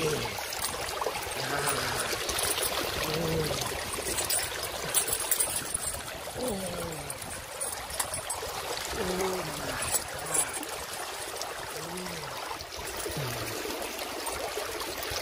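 Shallow stream water running and splashing around hands working a metal chain in it, with a few clinks. Short wordless voice sounds come several times over the water.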